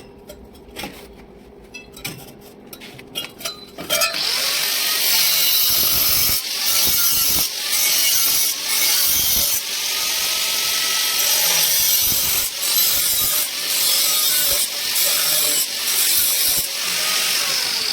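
Light metal clinks and handling clicks, then a power tool starts abruptly about four seconds in. It runs with a harsh hiss, dipping briefly every second or two as the load changes.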